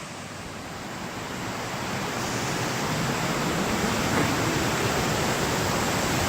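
Waterfall rushing in a steady roar of falling water, growing louder over the first couple of seconds and then holding even.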